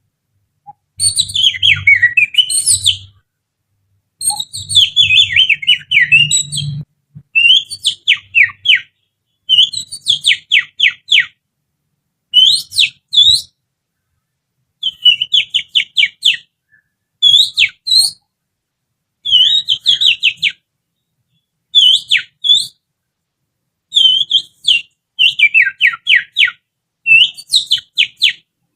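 Little-finger whistling imitating an oriental magpie-robin's song, used as bait to provoke a caged bird: phrases of rapid high chirps and trills, about a dozen of them, separated by short pauses.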